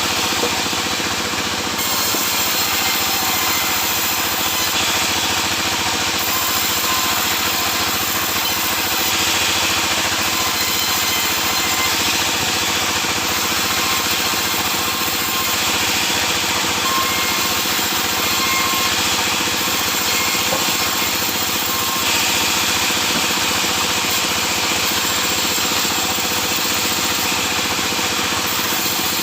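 Sawmill saw running steadily as it cuts sengon laut (albizia) logs, a continuous loud machine noise whose hiss changes a little as the cut goes on.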